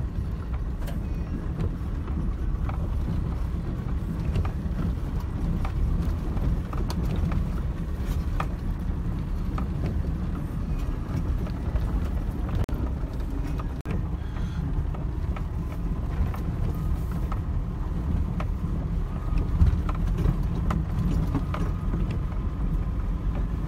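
In-cabin noise of a double-cab pickup truck driving over a rough, stony dirt track. A steady low rumble of engine and tyres runs throughout, with frequent irregular knocks and rattles from stones under the tyres and the suspension. One knock near the end is louder than the rest.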